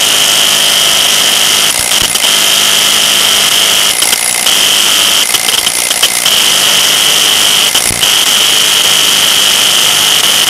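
DeWalt DCF922 cordless 1/2-inch impact wrench hammering continuously under full load, tightening against a hydraulic torque tester. It is a loud, steady rattle of rapid impacts with a high ringing note through it, dipping briefly a few times.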